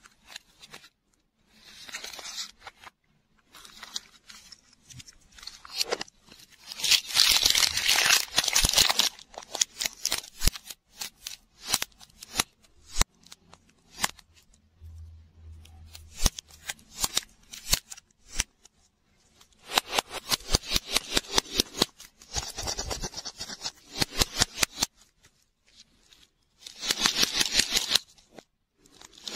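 Hands unwrapping and opening plastic surprise lollipop balls: plastic wrappers crinkling in bursts of a few seconds, with many sharp clicks and taps of the hard plastic shells.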